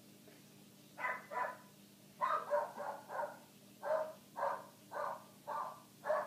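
Foxhound–springer spaniel mix dog barking: two barks about a second in, then a steady run of about two barks a second.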